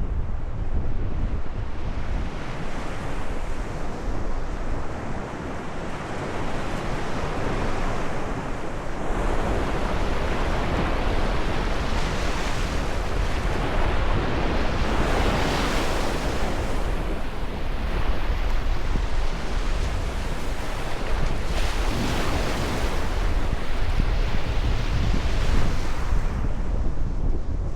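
Ocean waves surging and washing in, swelling loud several times over the stretch, with wind rumbling on the microphone.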